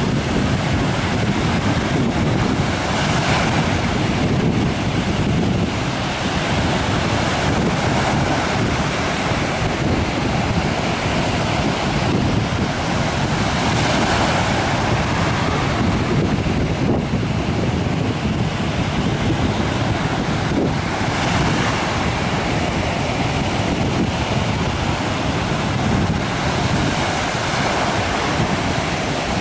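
Sea surf breaking and washing up a sandy beach, swelling and easing every few seconds as the waves come in, with wind buffeting the microphone.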